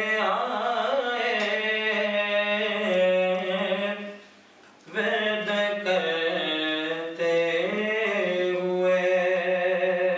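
A man's unaccompanied voice chanting in long, drawn-out melodic phrases, with one break for breath about four seconds in.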